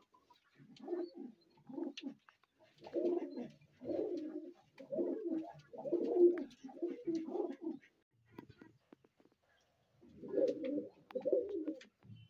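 Domestic pigeons cooing: a run of low coos about one a second, a pause, then two more near the end, with faint scuffs and clicks between.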